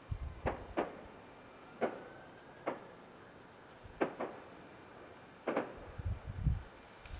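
Distant fireworks heard from about a mile away: sharp bangs come roughly once a second, and deeper booms come near the start and again around six seconds in.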